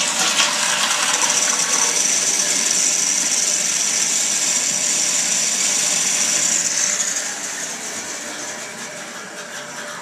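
1991 Crane Economiser toilet with a Sloan Flushmate 501B pressure-assist system flushing: a loud rush of water with a high hiss, easing off about seven seconds in as the pressure vessel refills.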